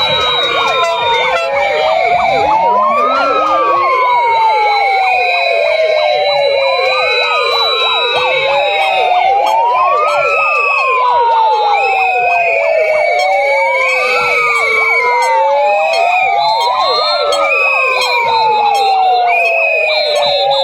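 Several sirens wailing at once, each rising and falling in pitch over about three seconds, out of step with one another, over short repeated higher beeps.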